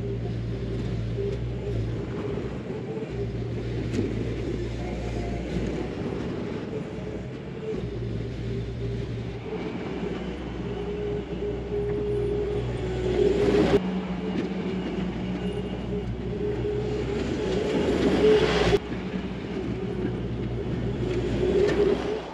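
Diesel engine of a tracked skid steer running steadily while grading a dirt trail, with the note and load shifting as it works. It gets louder for a moment about 13 seconds in and again around 18 seconds.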